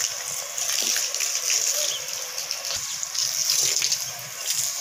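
Water from a garden hose splashing onto a wet concrete roof as it is washed down, a steady hiss.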